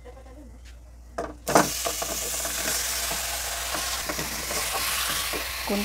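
Raw pork ribs dropped into hot oil with ginger and onion in a pot: a loud sizzle starts suddenly about one and a half seconds in and keeps going steadily as the meat begins to sauté.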